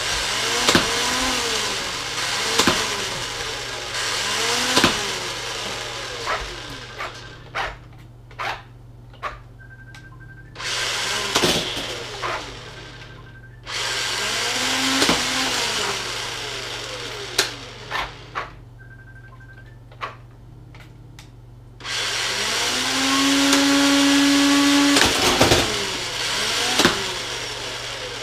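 Toy R/C blaster mech's electric firing mechanism whirring in long bursts as it shoots foam rounds, its pitch dipping and recovering every couple of seconds. Sharp clicks and knocks come in between as rounds strike the targets and bounce, with two short high beeps.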